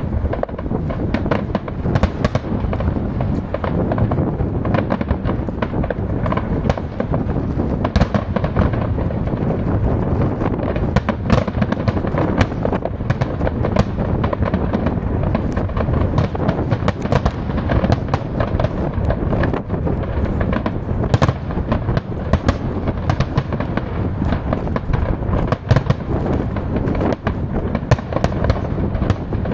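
Fireworks display: a continuous barrage of bangs and crackles from shells bursting close together, over a steady low rumble.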